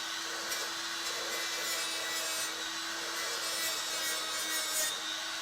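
Straight grinder with an abrasive wheel stripping rust and zinc coating off car-body sheet steel: a steady motor whine under an even, scratchy grinding hiss.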